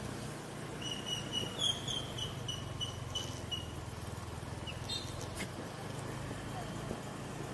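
Motorbike running steadily as it is ridden. A quick string of about ten short high chirps sounds for about two and a half seconds, and two sharp clicks follow around the middle.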